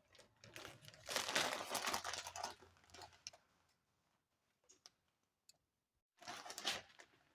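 Crinkling of food packaging being handled in two bursts, the first lasting about two seconds, with a few light clicks in the quiet gap between them.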